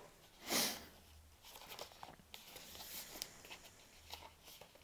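Smartwatch box and packaging being handled and opened: a brief swish about half a second in, then soft rustling and light clicks.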